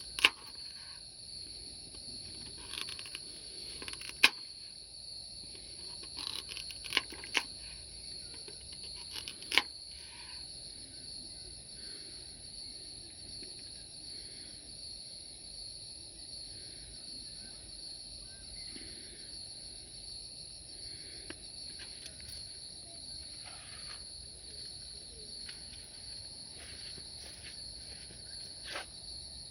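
Steady chorus of insects, crickets or similar, trilling continuously at two high pitches. Several sharp clicks or knocks in the first ten seconds and one more near the end.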